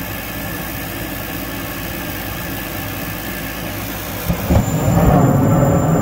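Steady hum of a rooftop gas package unit's inducer motor. About four seconds in, a louder low rumble sets in as the new gas valve opens and the burners light.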